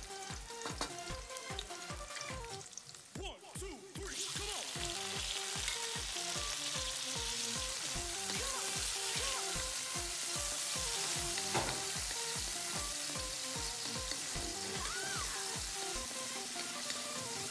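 Chopped onion, garlic and then tomato pieces sizzling in hot oil in a stainless pan while being stirred with a wooden spatula; the sizzle dips briefly about three seconds in and is louder from about four seconds on. Background music with a steady beat plays along.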